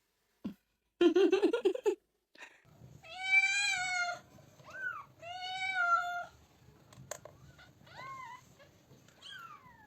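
A domestic cat meowing: two long drawn-out meows of about a second each, then a few short rising mews near the end. A brief loud pulsing sound comes about a second in, before the meows.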